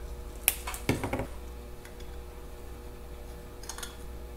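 Small hard clicks and taps of a plug being fitted by hand into a Zenith carburetor body: two sharp clicks about half a second and a second in, and a few fainter ones near the end.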